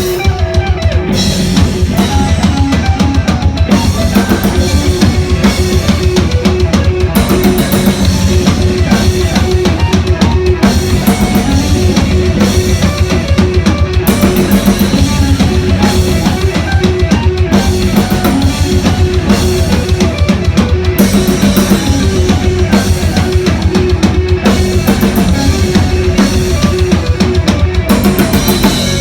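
Live rock band playing: a drum kit beating fast and evenly with bass drum and snare, under a steady bass line and a repeating higher note. Near the end the drums stop and a held guitar note rings on.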